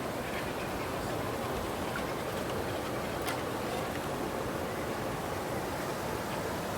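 Steady rushing of river water over falls, an even hiss-like rush with no changes.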